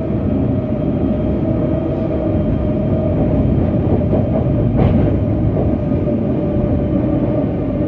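Kaohsiung light rail tram running, heard from inside the car: a steady rumble of wheels on track under a steady motor whine, with one sharp clank about five seconds in.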